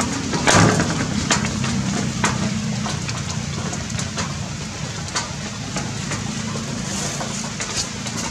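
Steady rain falling on tree leaves, with scattered sharp drops tapping close by. A low steady hum runs underneath.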